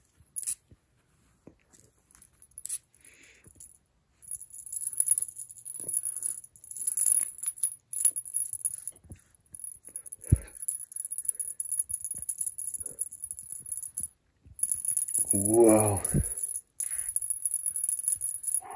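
A cat wand toy jingling and rattling in quick bursts as it is twitched about and a cat bats at it. The jingling starts a few seconds in, with short breaks, and there is a soft thump about halfway through.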